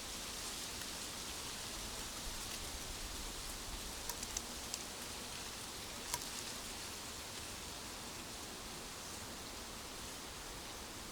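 Steady hiss of a nature ambience, with a handful of sharp ticks about four to five seconds in and one more about six seconds in.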